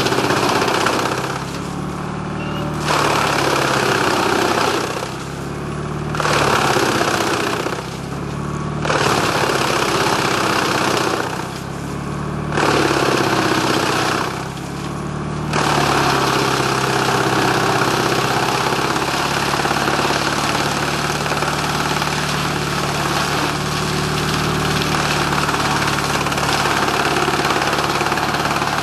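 Dutch Dragon EC9045 PTO-driven wood chipper chipping brush fed by a grapple, coming in loud stretches of a few seconds with short lulls between loads, then running steadily from about halfway through. The driving engine hums steadily beneath.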